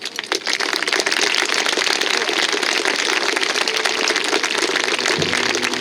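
Audience applauding: many hands clapping together, building quickly at the start and then keeping up a steady level.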